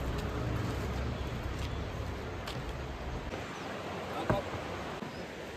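Steady rush of a mountain waterfall and stream, with a single sharp knock a little past the middle.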